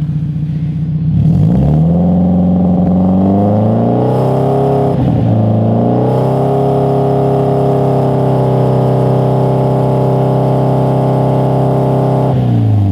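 Car engine on a modified exhaust revved from idle about a second in and held at a steady high rev, around 4,000 rpm, for a stationary decibel test. The revs waver briefly about five seconds in, and the engine drops back to idle near the end.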